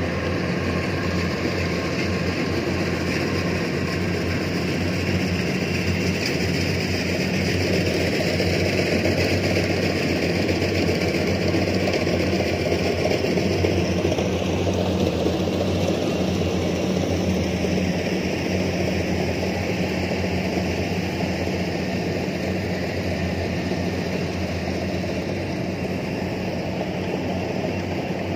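Kubota DC-105X combine harvester running while harvesting rice: a steady diesel engine drone with a constant low pitch.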